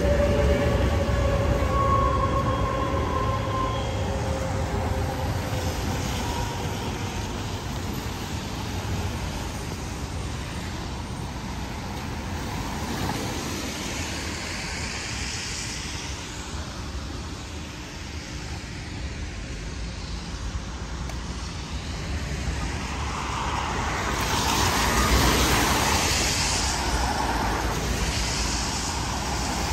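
City street traffic rumbling steadily. A vehicle's whine falls in pitch over the first few seconds, and another vehicle passes close with a rush of tyre noise about 25 seconds in.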